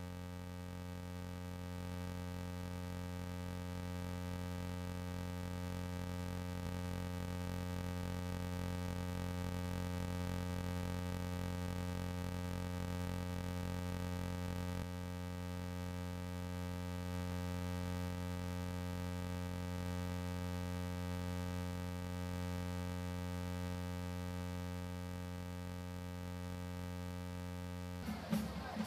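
Steady electronic drone with many overtones, unchanging in pitch, with a slight shift about halfway through. Just before the end it gives way to crowd and game noise.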